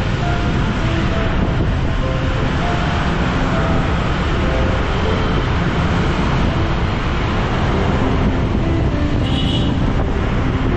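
Steady wind rush on a helmet-mounted action camera's microphone, mixed with motorbike engine and traffic noise while riding through city traffic. A short, high-pitched horn beep sounds near the end.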